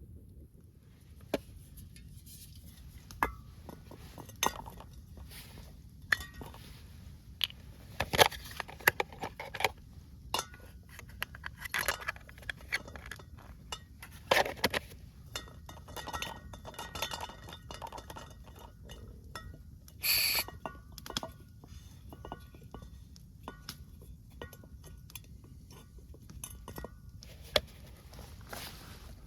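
Camp dishes and cutlery clinking and knocking at a campfire meal: an irregular string of sharp clinks and clanks.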